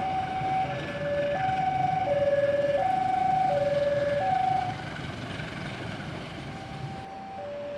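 Two-tone electronic warning alarm switching back and forth between a high and a low note about every 0.7 seconds, over a steady low rumble. It drops in level about two-thirds of the way through and carries on more faintly.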